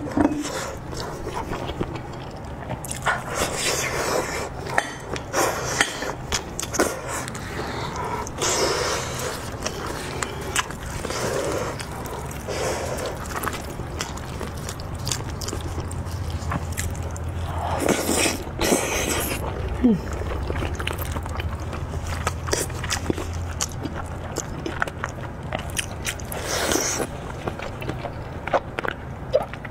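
Eating sounds from a spiced sheep's head: irregular biting, chewing and tearing of the braised meat, with clicks and smacks and a few louder bursts of mouth noise.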